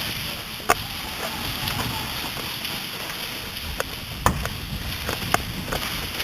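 Scattered sharp cracks of airsoft guns firing single shots at irregular intervals, about ten in all, over steady wind noise on the microphone.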